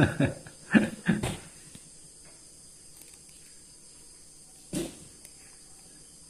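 A few short knocks and handling noises in the first second and a half, then a single sharper knock nearly five seconds in.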